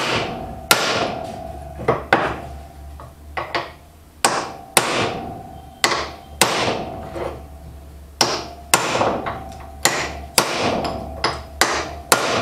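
Hammer blows on a Daihatsu F10 tail-shaft yoke to drive out a rusted-in universal joint: about fifteen sharp, ringing metal strikes at an uneven pace of roughly one a second, some in quick pairs.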